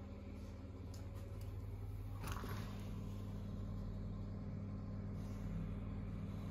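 A steady low mechanical hum, with a brief rushing noise about two seconds in.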